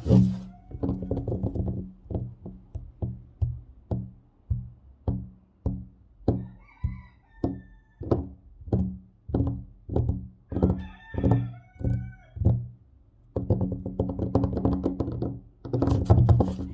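Fingers tapping on a table, separate knocks about two to three a second, each ringing low; quick continuous tapping and scratching at the start and again in the last few seconds. Twice, about a third of the way in and again past the middle, a short high-pitched sound is heard over the taps.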